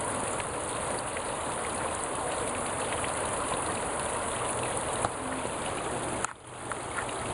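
Steady rush of running water from a creek at a waterfall, cutting out briefly about six seconds in.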